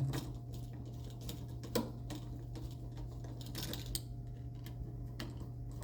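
Small irregular clicks and a brief scrape of a screwdriver tightening a wire's terminal screw on a wall light switch.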